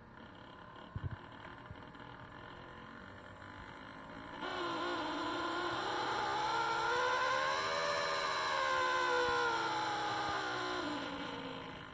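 A pitched mechanical whine with several tones, the noise fault on an Atlas B30-7. It starts suddenly about four seconds in, rises in pitch, then falls and fades near the end, like a motor speeding up and slowing down.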